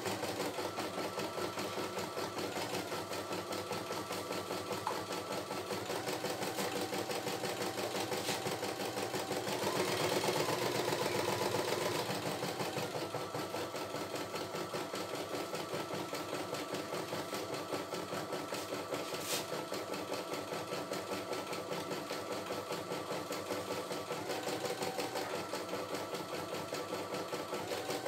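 CNY E960 computerised embroidery machine stitching a design: rapid, even needle strokes over the steady whine of its motors, with a brief louder stretch about ten seconds in.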